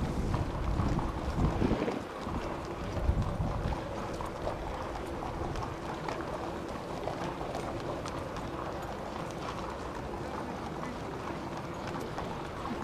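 Racehorses' hooves clip-clopping, with wind rumbling on the microphone in the first few seconds.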